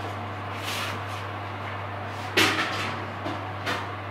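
Kitchen handling sounds as a muffin tray is picked up and moved: a few short clunks and rustles, the loudest a sharp knock about two and a half seconds in, over a steady low hum.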